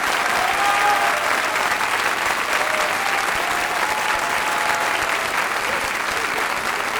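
Theatre audience applauding steadily after a song, with a few voices calling out above the clapping near the start and again midway.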